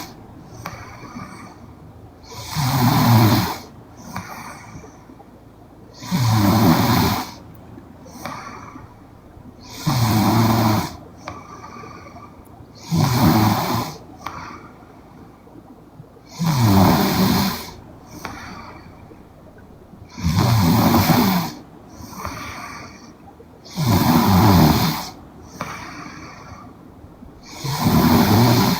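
A young woman snoring in her sleep: a loud, fluttering snore about every three and a half seconds, eight in all, with a softer breath sound between each.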